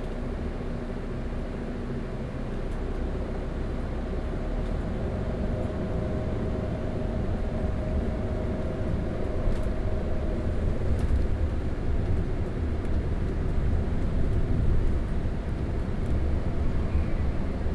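Diesel engine of a double-decker bus running while it travels, a steady low drone heard from close to the engine. It grows louder and heavier in the second half.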